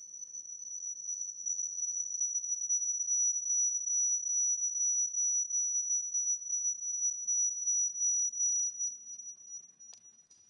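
High-pitched audio feedback: a single steady squeal from a microphone loop through computer and camcorder. It grows louder over the first few seconds, then fades away near the end, and a sharp click comes as it dies.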